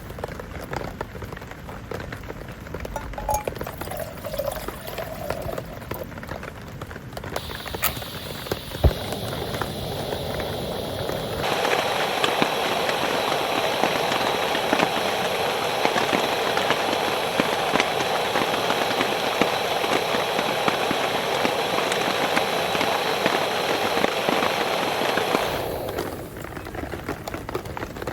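Rain falling, heard in a few abruptly changing stretches; from about 11 seconds in to about 25 seconds it is a much louder, denser downpour. A single sharp knock sounds near 9 seconds.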